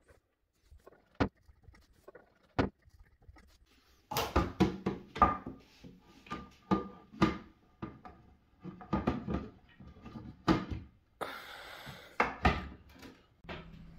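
Baby cot parts knocking and clattering as the white painted wooden panels and rails are handled and fitted together. Two sharp knocks, then a busy run of irregular knocks and taps with a brief scraping rush near the end.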